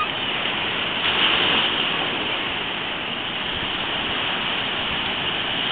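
Atlantic surf breaking over rocks and washing into a shallow cove: a steady rushing, swelling louder about a second in.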